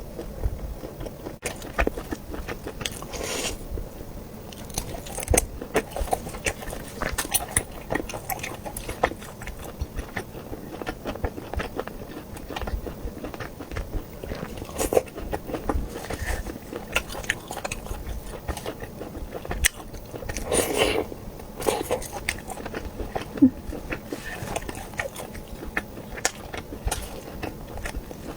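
A person biting and chewing air-fried sausage rings close to the microphone, with many short, irregular bites and mouth clicks.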